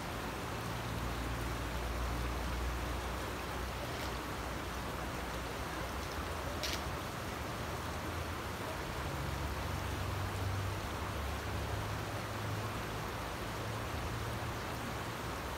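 Steady rain falling, an even hiss, with a low hum underneath and one short sharp click about seven seconds in.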